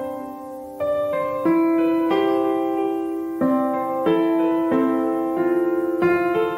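Background music: a gentle piano piece, a new note or chord struck roughly every second and ringing on until the next.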